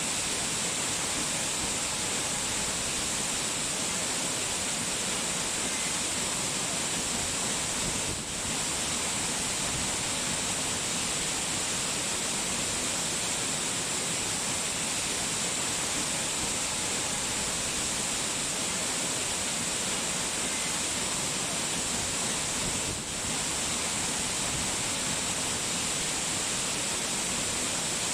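Steady, even rushing of falling water, dipping briefly twice.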